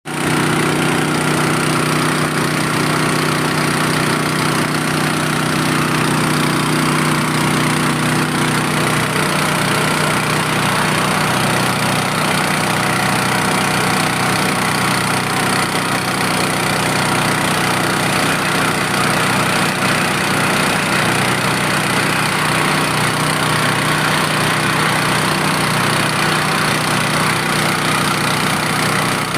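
Engine-driven drilling machine running steadily, the engine turning the drill bit at an even speed.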